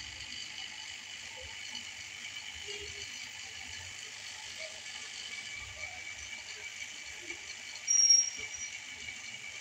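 Potato masala sizzling steadily in a non-stick wok on the stove, a constant frying hiss. A short high-pitched beep about eight seconds in is the loudest sound.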